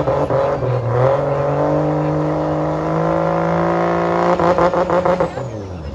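Drag car engine under hard acceleration, its pitch climbing and then holding high. About four seconds in comes a run of sharp pops and crackles, and then the sound fades away.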